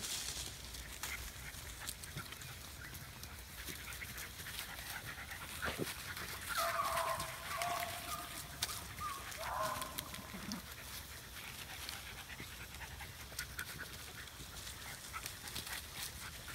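Beagle panting and moving through grass and dry leaves, with scattered rustling crackles. A dog gives a drawn-out pitched cry about six and a half seconds in, and a shorter one near ten seconds.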